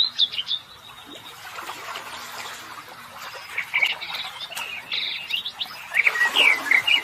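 Small birds chirping: quick, high, twittering calls that come in spells, thickest at the start and again in the second half, over a faint steady hiss.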